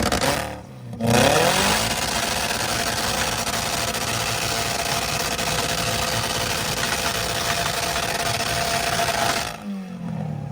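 Car engine revved onto a two-step launch limiter and held there: a loud, dense crackle of rapid backfire pops that runs for about eight seconds, then cuts off suddenly near the end as the throttle is released and the revs fall away.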